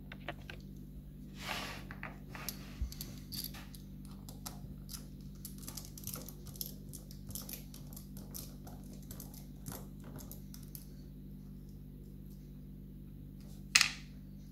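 Small metal clicks and light scrapes of lock-picking tools and a brass lock being handled, with one sharper click near the end.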